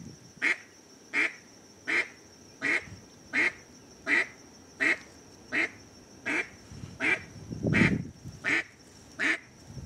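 Duck call blown in a steady, even cadence of single quacks, about one every 0.7 seconds, to draw in ducks flying in the distance. A brief low rumble swells about eight seconds in.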